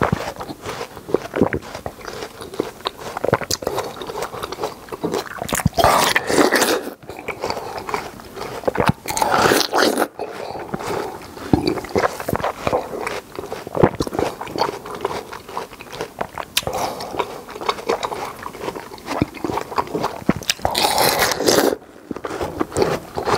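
Watermelon being bitten into and chewed: crunching and wet chewing sounds, close-miked, with louder, longer bites about six, nine and twenty-one seconds in.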